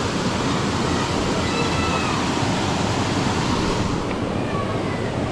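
Little Missouri Falls' water rushing over the rocks: a steady, even roar of falling water.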